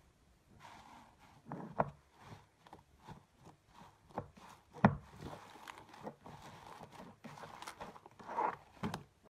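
Aerated, bubble-filled slime being pressed and kneaded by hand in a plastic bowl, giving irregular clicks and pops as the air pockets squash and burst. The loudest snap comes about five seconds in.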